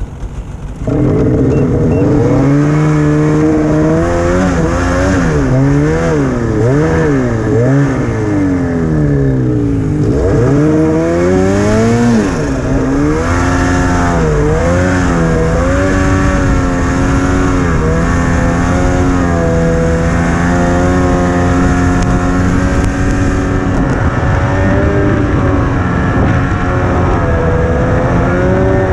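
Snowmobile engine opened up about a second in, its revs swinging up and down again and again as the sled works through deep powder, then holding higher and steadier with slow rises and falls.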